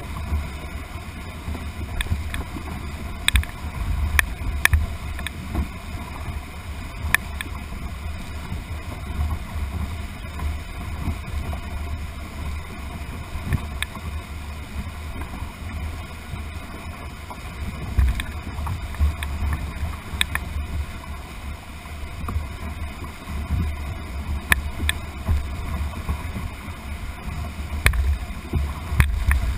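Whitewater of a class II–III rapid rushing around a canoe, heard from a camera on its deck, with a strong low rumble and scattered sharp clicks throughout.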